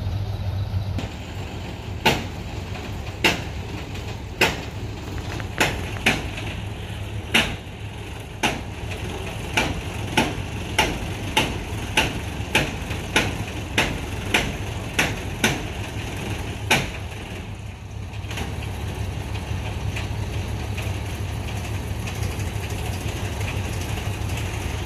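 A diesel truck engine idling steadily, with a run of about eighteen sharp knocks like hammer blows, coming roughly every second and stopping about two-thirds of the way through.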